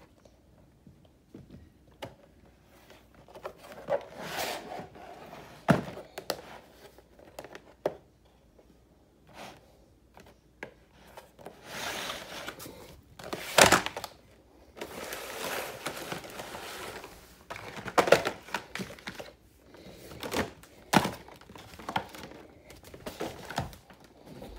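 Clear plastic clamshell packaging of a DeWalt bit set being handled: plastic crinkling and crackling, with several sharp knocks.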